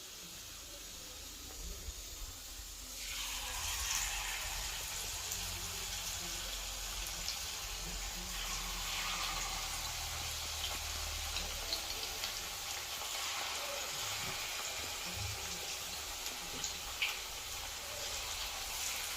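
Chicken 65 pieces deep-frying in hot oil: a steady sizzling hiss that starts suddenly about three seconds in and holds, with a few faint crackles.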